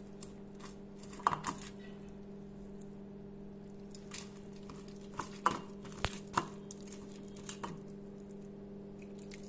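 Hand mixing a gram-flour bajji batter in a stainless steel bowl as water is poured in: scattered soft squelches and sharp taps of the steel bowl and tumbler, over a steady low hum.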